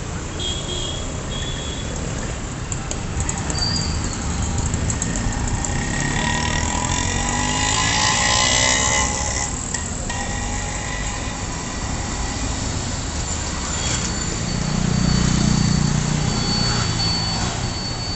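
Road traffic: a steady wash of engines and tyre noise. About halfway through, a vehicle passes close, its pitch falling as it goes by, and near the end a heavy vehicle's low rumble swells and fades.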